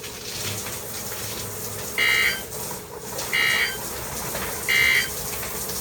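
Three short buzzy data bursts of NOAA Weather Radio's SAME digital code, about a second and a half apart: the end-of-message bursts that close a broadcast warning. A faint steady radio background lies under them.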